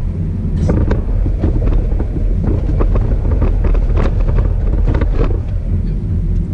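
Car moving on a city street, heard inside the cabin: a steady low rumble of road and engine noise with scattered short knocks and rattles.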